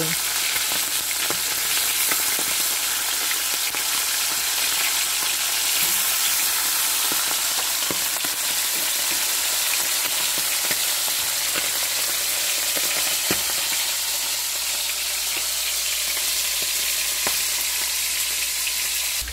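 Whole Indian mackerel (hasa-hasa) frying in hot canola oil in a metal wok over medium-high heat: a steady sizzle, with a faint tick now and then.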